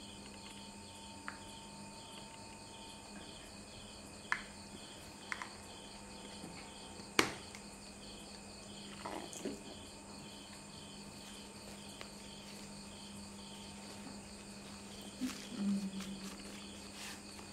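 Crickets chirping steadily at about two pulses a second over a low steady hum, with a few sharp clicks from a plastic baby bottle being handled. The loudest click comes about seven seconds in.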